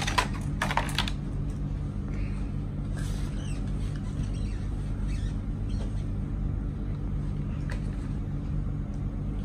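Light handling sounds of over-ear headphones and their cable being turned over, with a few sharp clicks in the first second, over a steady low hum.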